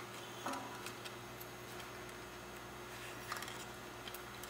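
A few faint clicks and light handling noises from a plastic model rocket and its rolled streamer being worked by hand, over a steady low room hum.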